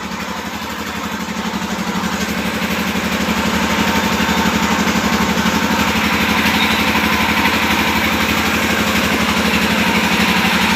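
Generator engine running steadily to drive the air compressor that fills a truck tyre to high pressure. A rushing hiss grows louder about halfway through, and the overall sound rises slowly.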